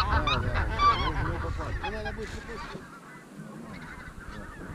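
A flock of wild geese honking overhead, many calls overlapping. The calling is loudest at first, fades over the next few seconds and picks up again near the end.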